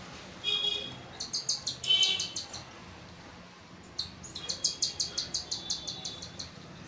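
Baby cockatiel chicks begging while being hand-fed: bouts of rapid, rhythmic high chirps, several a second, with short louder calls about half a second and two seconds in.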